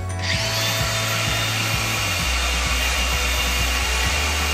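An angle grinder spins up with a quick rising whine about a quarter second in. It then runs steadily as its dry diamond core bit grinds into porcelain tile, a harsh hiss with a high whine over it.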